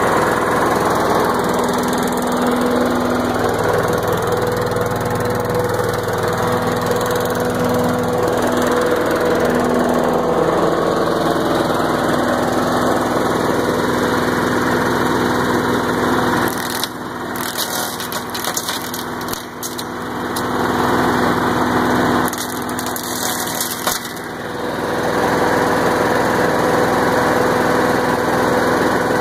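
Troy-Bilt CSV 060 chipper shredder's Briggs & Stratton 190cc engine running steadily. Twice in the second half, a stick fed into the chipper crackles and splinters while the engine note dips under the load.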